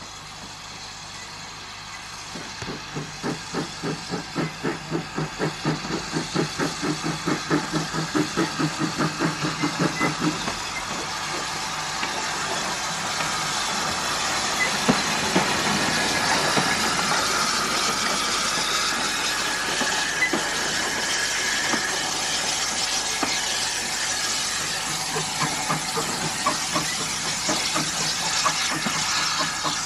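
Andrew Barclay No. 10 saddle-tank steam locomotive working a brake van past the platform. For several seconds its exhaust chuffs come at a quickening, regular beat and grow louder as it approaches. As it passes there is a steady hiss of steam with clanks from the wheels and running gear, and faint chuffs return near the end as it draws away.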